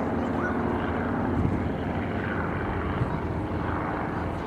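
Aircraft engines running steadily, with a low, even hum of propeller or rotor noise.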